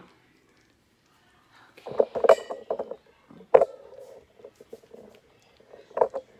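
Metal serving utensils clinking against a glass baking dish and dishes: a cluster of clinks about two seconds in, one with a brief ringing tone, then single sharp clinks about three and a half seconds in and near the end.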